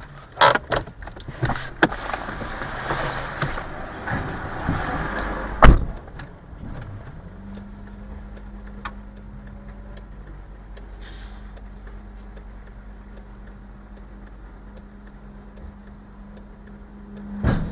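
Car interior noise picked up by a dash cam while the car creeps forward: a run of knocks and rattles with one heavy thump about six seconds in, then a steady low engine hum.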